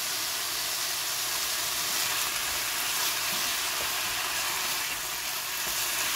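Chicken strips frying in oil in a nonstick wok, a steady sizzle, while they are stirred and turned with a silicone spatula.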